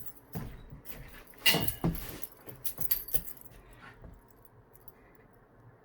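Handling noise: a quick run of clicks, knocks and rattles of small hard objects being moved about over the first three seconds, then faint room tone.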